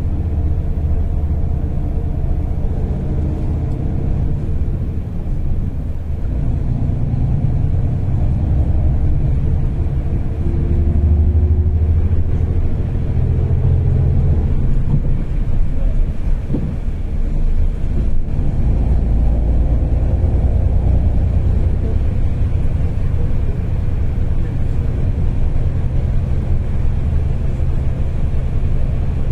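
Steady low rumble of a bus's engine and tyres heard from inside the passenger cabin while it drives, with the engine note drifting up and down.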